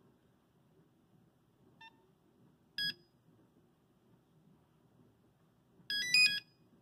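Nokia 5110 mobile phone beeping: a faint short beep about two seconds in, one clear beep about a second later, then a quick run of several beeps at changing pitches near the end, the opening of a monophonic ringtone.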